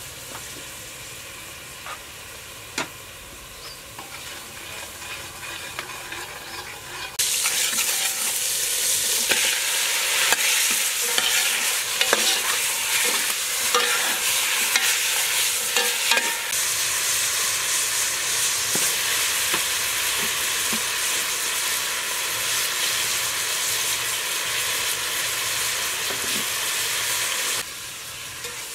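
Pieces of red meat and garlic frying in oil in an aluminium pot, stirred with a metal ladle. A quieter sizzle with ladle clicks at first, then about seven seconds in a loud, steady, crackling sizzle comes in suddenly and drops away abruptly near the end.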